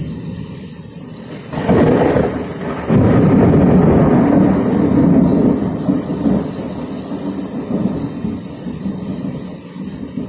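Thunder cracks about two seconds in and again a second later, then rumbles low for several seconds and slowly fades, over the steady noise of heavy rain.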